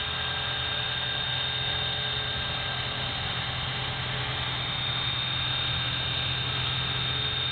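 EXI 450 electric RC helicopter hovering at constant collective: a steady low rotor hum with a steady high whine over it.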